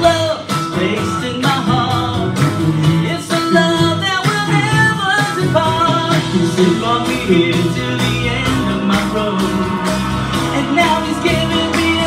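Two men singing a Christian worship song into microphones over accompaniment with a steady beat.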